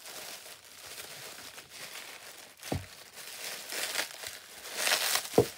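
Bubble wrap crinkling and rustling as it is pulled off a pack of plastic spray bottles, with two short knocks, the louder one near the end.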